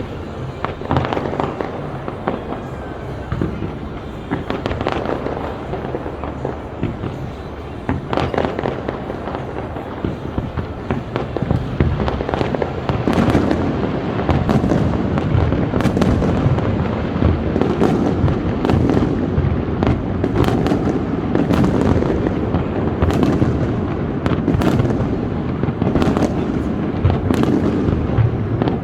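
Aerial fireworks display bursting: scattered bangs in the first half, then from about halfway a louder, dense barrage of rapid bangs and crackles.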